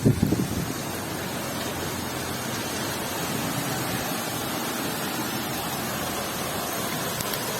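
Heavy rain in a downpour, a steady, even hiss. Wind buffets the microphone for the first half second.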